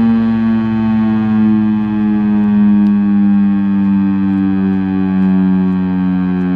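Federal Signal STL-10 three-phase chopper siren sounding a single loud tone whose pitch slowly falls, as during a wind-down in its attack test signal.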